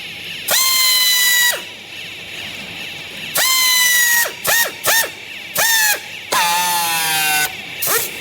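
Electric power-tool motor, most like a drill, run in about seven trigger bursts: each whine spins up quickly, holds, then winds down. There are two very short blips in the middle, and a longer burst near the end whose pitch sags as it runs.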